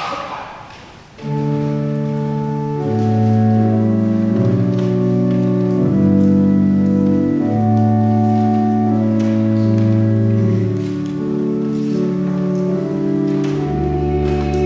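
Church organ playing slow, held chords that change every second or two, with deep bass notes added near the end: the organ introduction to a choir anthem. A brief noise just before the organ comes in.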